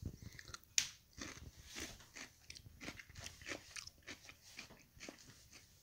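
A person biting into a slice of raw China Jade cucumber with a sharp crunch about a second in, then chewing it with a run of small crunches.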